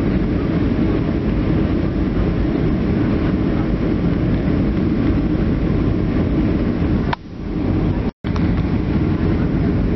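Steady low rumble of airliner cabin noise: jet engines and airflow heard inside the passenger cabin. It dips about seven seconds in and cuts out for an instant about a second later, then carries on.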